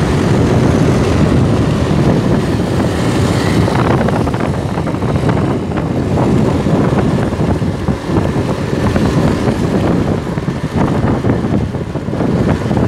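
Wind rushing over the microphone of a phone carried on a moving Honda Scoopy scooter: a loud, dense, low rumble that rises and dips, with the scooter's running and road noise underneath.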